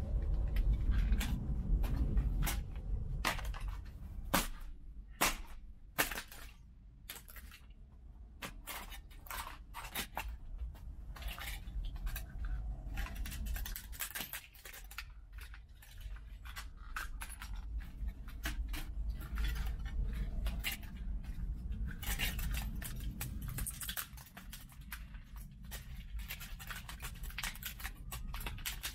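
A DJI FPV drone's plastic body and arms cracking and snapping as they are broken apart by hand, in many sharp clicks with handling and scraping between and a few louder snaps. A low rumble runs underneath.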